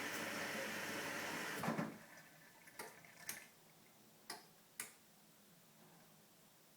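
Candy Grando washing machine early in a 40 °C cotton wash: a steady rushing noise stops abruptly with a couple of knocks about two seconds in, then four sharp clicks follow.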